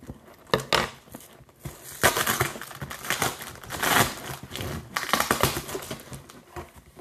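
Cardboard shipping box being opened by hand: flaps pulled apart and the contents crinkling and rustling, busiest from about two seconds in.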